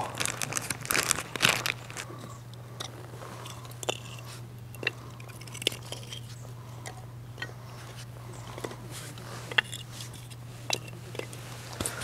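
Dry split kindling sticks being laid by hand onto a fire stand's hanging fire sheet: scattered light wooden knocks and clatter, busiest in the first second or two, then single taps every second or so.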